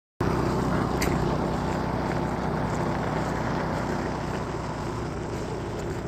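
Small motorized tow sled ('motodog') engine running steadily as it drives off, cutting in abruptly a moment in and easing slightly in level.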